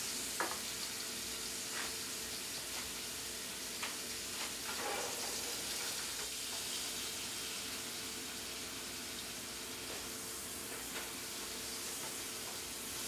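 Beef roast searing in a hot skillet, sizzling steadily, with a few light clicks now and then.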